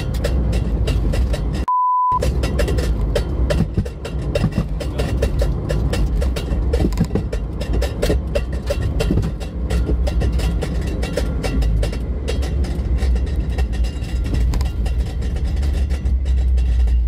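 Car interior noise while driving at speed: a steady low engine and road rumble with frequent small knocks and rattles. About two seconds in, a short steady bleep briefly replaces all other sound.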